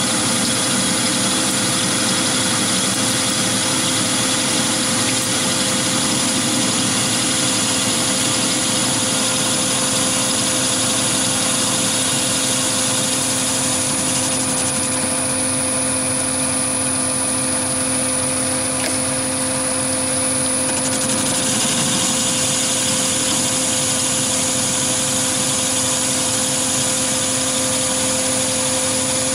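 Chinese mini lathe running steadily under power, with the motor-driven compound slide feeding a turning tool along a long taper in mild steel. It makes a continuous mechanical hum with a thin high whine, and the higher part of the sound shifts for several seconds midway.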